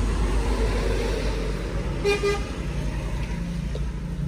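A motor vehicle passing on a nearby road with a low engine rumble, and a short double toot of its horn about two seconds in.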